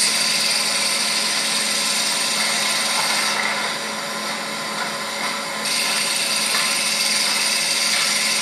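Steady whirring machine noise with a low hum and a hiss. The upper hiss thins out for about two seconds in the middle, then returns.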